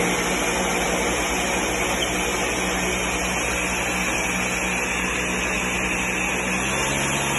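Countertop jug blender running steadily, its motor and blades churning a liquid mix of aloe vera gel, rum and orange juice into a froth.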